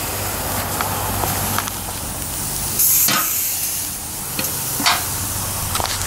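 Wood-fired vertical fire-tube steam boiler under pressure with its steam blower drawing air through the fire. It makes a steady hiss with scattered crackles, and a brief sharper hiss about three seconds in.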